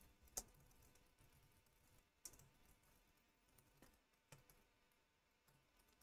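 Near silence broken by a handful of faint, isolated computer keyboard keystrokes, spaced a second or more apart, the sharpest one near the start.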